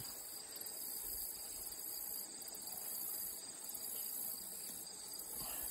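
A chorus of field insects in the grass, a steady high-pitched trill that pauses briefly about once a second.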